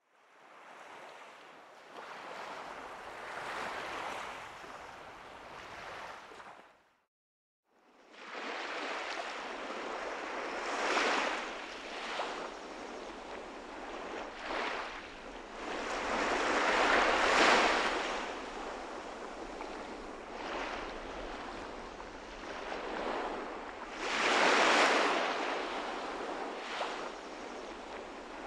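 Small sea waves washing onto a pebble beach, a steady hiss that swells and eases every few seconds. The sound cuts out completely for under a second about seven seconds in.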